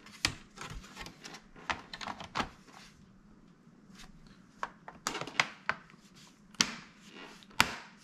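Lenovo Legion 5 laptop's bottom cover being set in place and pressed down by hand, its clips snapping in with a series of sharp clicks and taps, the two loudest near the end.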